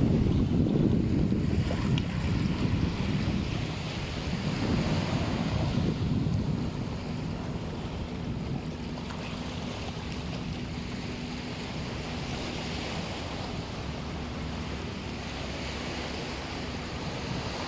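Sea waves washing on a sandy beach, mixed with wind buffeting the microphone, the low rumble heaviest for the first few seconds and then easing. A faint steady hum runs under it through the second half.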